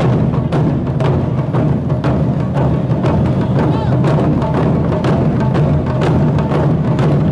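Loud festival music driven by drums and percussion, with strikes coming close together at a steady pace.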